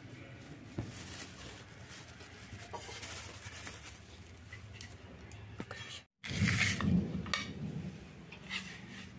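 Thin plastic bag rustling as chopped onions are shaken out of it onto a bowl of pav bhaji, with scattered clicks. After a brief dropout about six seconds in, louder handling with a steel spoon in the bowl.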